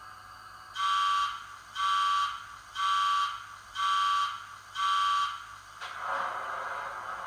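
Bachmann Class 66 model's DCC sound decoder playing the diesel engine start-up sequence through the model's small speaker: five evenly spaced electronic warning beeps about a second apart, then the engine noise starting up near the end.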